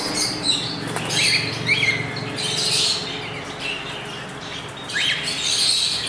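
Many caged birds chirping and squawking in short, high calls, over a steady low hum.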